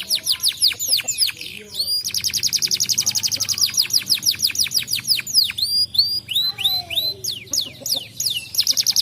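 Domestic canary singing: fast trills of quickly repeated high notes alternating with falling, sweeping whistles, with a brief pause about two seconds in.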